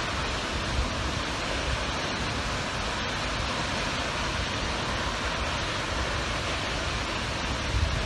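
Steady, unbroken rush of Emperor Falls, a large waterfall on the Robson River, heard from close by.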